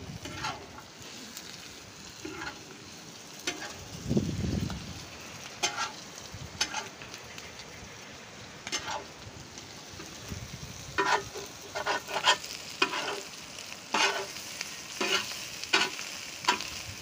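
Metal spatula scraping and clanking against a large iron tawa as chicken is stir-fried, over a steady sizzle. The strokes come more often in the last six seconds.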